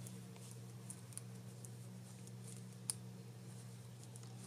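Faint, scattered clicks and taps of metal double-pointed knitting needles as stitches are worked, over a steady low hum.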